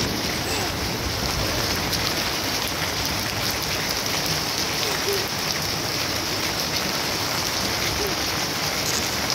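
Steady rain falling on garden plants and puddled paving, an even hiss with no breaks.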